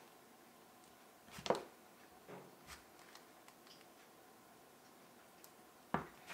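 A knife slicing a block of cheese and knocking on a cutting board: a few short knocks, the loudest about one and a half seconds in and another near the end, over a faint room background.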